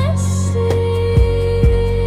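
Slow ambient song in an instrumental gap between sung lines: a long held note over a steady bass, with a soft low beat about twice a second.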